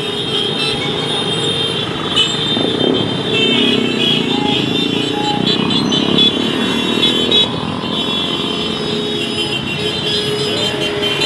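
A steady stream of motorcycles and cars passing close by in a long caravan, mostly small motorcycle engines running as they ride past.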